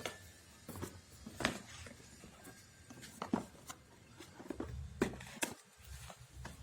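Irregular light taps and clicks of objects being handled, about a dozen in all. The louder ones come about a second and a half in, around three seconds in, and twice near five seconds in.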